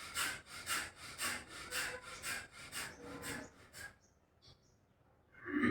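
Forceful, rapid in-and-out breathing through the nose of bhastrika pranayama, rhythmic at about two breaths a second, stopping about four seconds in. One short louder sound comes near the end.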